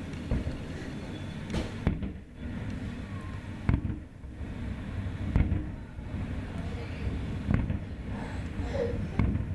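Fireworks exploding, about six or seven separate booms spaced one to two seconds apart, over a steady low rumble.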